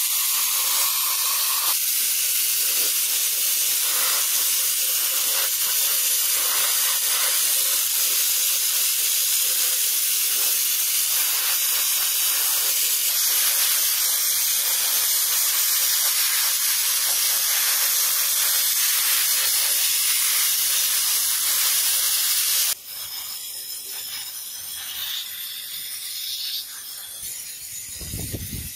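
Sandblaster hissing steadily as it blasts rust off a hydraulic jack part. The hiss cuts off suddenly about three-quarters of the way through, leaving quieter handling noise and a low thump near the end.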